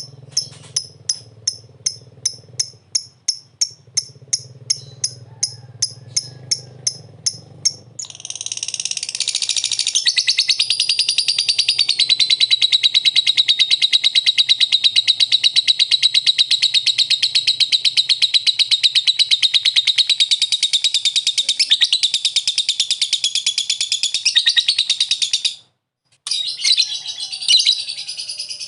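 Lovebird singing: a run of short sharp chirps, about three a second, then from about eight seconds in a long unbroken rapid chattering trill, the 'ngekek' song, which breaks off suddenly near the end before more chirps.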